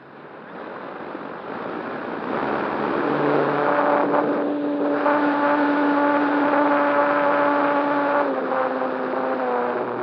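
RC ASW 28 model glider's nose-mounted electric motor and propeller running under power, heard from a camera on board with the airflow rushing past. The drone builds over the first few seconds, holds a steady pitch, then steps down in pitch twice near the end as the throttle eases.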